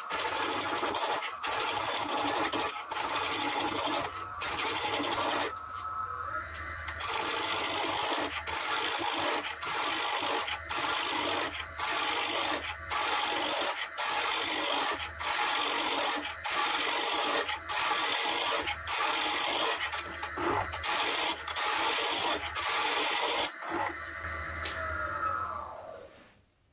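A gouge cutting a spinning wooden blank on a Record Power DML320 lathe, roughing it to a cylinder: a loud scraping hiss of shavings in repeated passes with brief breaks about every second. Near the end the cutting stops and the lathe's motor whine falls away as it spins down.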